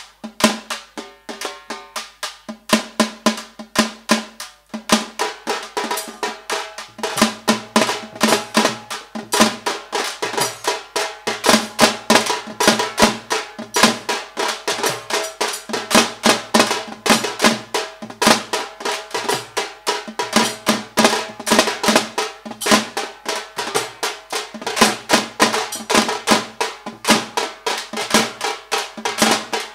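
Tambours malbar, the Tamil frame drums of Réunion, played together in a fast, steady beat that grows louder about five seconds in.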